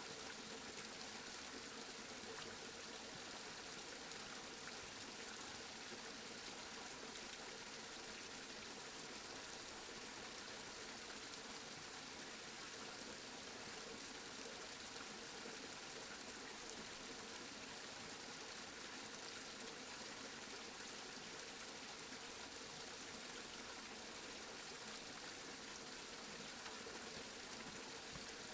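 Steady rain falling, an even hiss with no change in strength.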